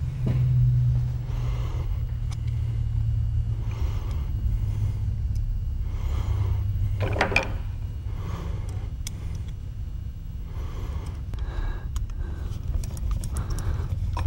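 Small steel gun parts and hand tools being handled at a workbench: faint scattered clicks and clinks over a steady low hum.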